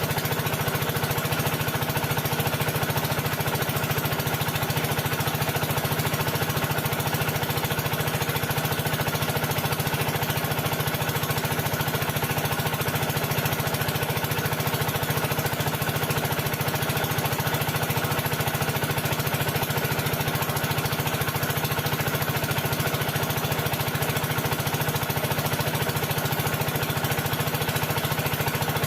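A machine's engine or motor running steadily with a fast, even beat.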